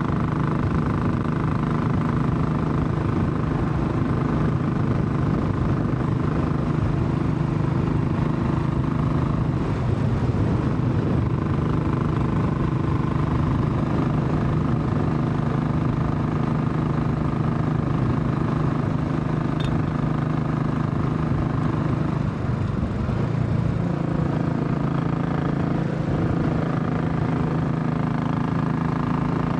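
Royal Enfield Classic 500's single-cylinder engine thumping steadily while riding. The engine note changes about ten seconds in and again about twenty-three seconds in.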